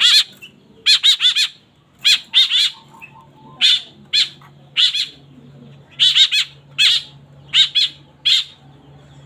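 White-breasted woodswallow (kekeb babi) fledglings giving short, harsh calls, singly and in quick runs of two or three, about every second.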